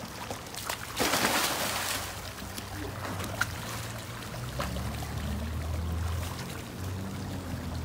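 A German shepherd splashing in a swimming pool: one loud splash about a second in, then quieter water sounds as it swims and climbs out, under a low steady hum.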